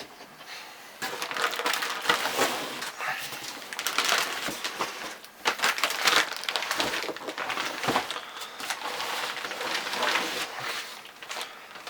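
Cardboard box and its packing being handled as a bicycle repair stand is pulled out of it: irregular rustling, crinkling and scraping noises.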